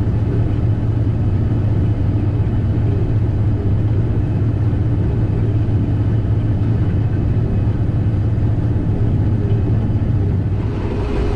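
Combine harvester running steadily while harvesting soybeans: a constant low engine drone with machinery hum that does not change pitch.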